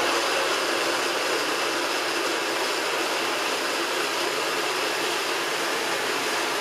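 Countertop blender running at full speed, pureeing frozen corn kernels with water: a loud, steady whirring that holds even throughout.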